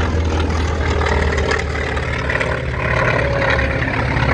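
A T-28 Trojan's nine-cylinder radial engine (1,820 cubic inches, 1,425 horsepower) and propeller running loud and steady as the aircraft flies its display, a deep rumble with a rasping edge.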